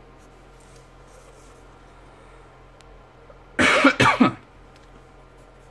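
A man coughs twice in quick succession about three and a half seconds in, over a faint steady room hum.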